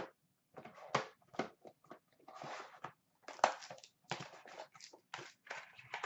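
Hockey card box and packaging being handled: irregular rustling, crinkling and light clicks as the box is opened by hand and a wrapped pack is lifted out and set down on a glass counter, with one sharper crackle about halfway through.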